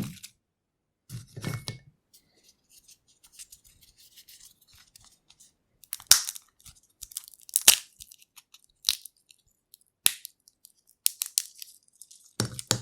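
Peanut shells being cracked and peeled by hand: sharp irregular cracks and crackly rustling of the papery shells, with a duller crunch about a second and a half in.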